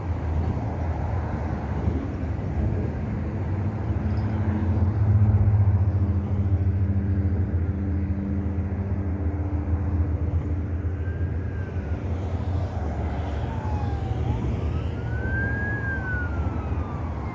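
A steady low engine rumble, as of motor traffic, swelling about five seconds in. In the last few seconds, faint high tones rise and fall several times.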